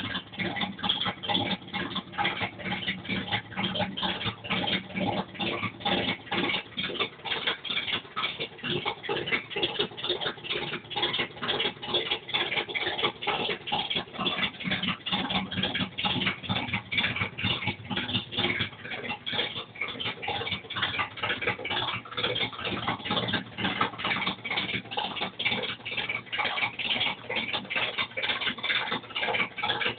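Volkswagen Gol engine running with a rapid, steady ticking clatter, several ticks a second over the engine's hum, the unwanted noise the car is making.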